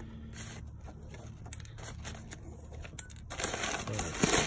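A black nylon drawstring bag being handled. About three seconds in, a dense rustling starts suddenly as a hand pulls the bag open at its cinched cord.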